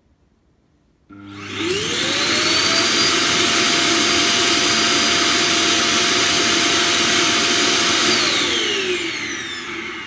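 iRobot Roomba j7+ Clean Base auto-empty suction fan: it starts suddenly about a second in, whines up to speed, runs loud and steady for about five seconds, then winds down with a falling whine near the end. This is the dock emptying the docked robot's dust bin into the base's bag.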